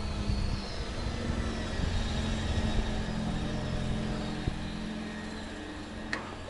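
Motor vehicle engine running close by with a steady low hum, and wind buffeting the microphone, a rumble that eases after about five seconds. Two sharp clicks in the second half.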